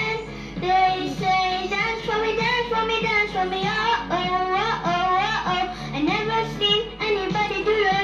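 A young girl singing a pop melody into a handheld microphone, with long gliding notes, over backing music.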